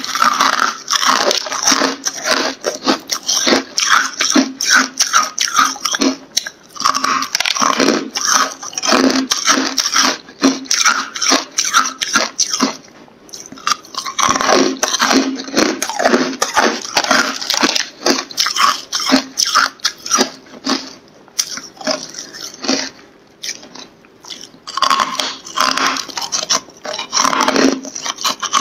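Carbonated ice being bitten and chewed close to the mic: dense, crackly crunching that pauses briefly about halfway through and again about three-quarters of the way in.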